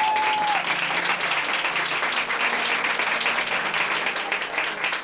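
A roomful of people applauding with steady, dense hand-clapping. A held high note over the clapping stops about half a second in.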